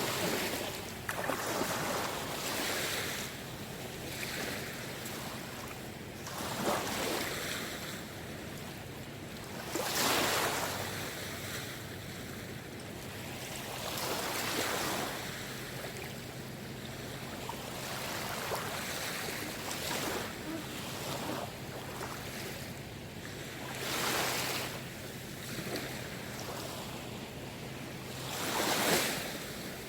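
Small waves washing onto the shore of the Seto Inland Sea, each swell rising and falling back every few seconds over a steady background of moving water. A faint steady low hum runs underneath and stops near the end.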